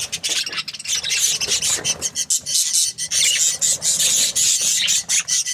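A flock of budgerigars chattering and chirping: a dense, unbroken run of rapid, raspy high notes with quick warbling glides.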